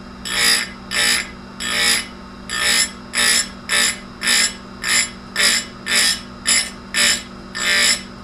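Saw chain being sharpened: a quick, regular series of rasping strokes, a little under two a second, over a steady hum.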